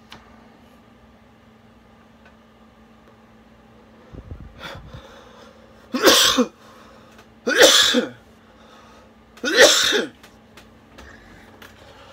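A man coughs hard three times, about two seconds apart, after drawing on a long water pipe. A brief low rumble comes about four seconds in, before the coughing starts.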